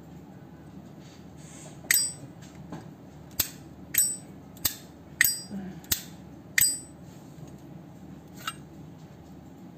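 Chrome Zippo lighter's hinged lid flicked open and snapped shut several times: about eight sharp metallic clicks, each with a short high ring, the last one fainter.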